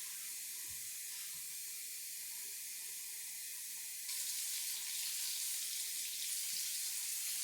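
Tap water running, a steady hiss that gets louder about four seconds in as the flow opens up.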